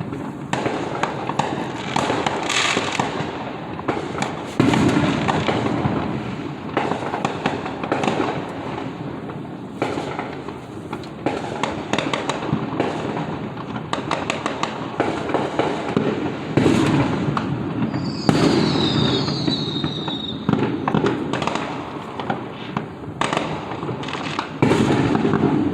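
A dense barrage of fireworks: a steady stream of overlapping bangs and crackling with no let-up, and a high whistle falling in pitch about 18 seconds in, typical of a whistling firework.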